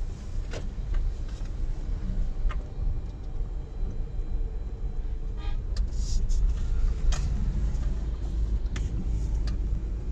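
Steady low road rumble of a car driving, heard from inside the cabin, with a few short sharp clicks.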